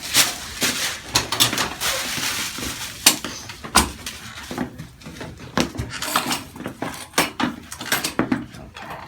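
A patient settling onto a chiropractic treatment table: rustling, with a run of sharp clicks and knocks. The rustling is thickest in the first few seconds.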